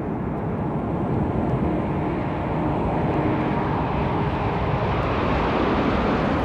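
Jet airplane engines: a steady rushing noise that swells and grows brighter over the first few seconds, then eases slightly near the end.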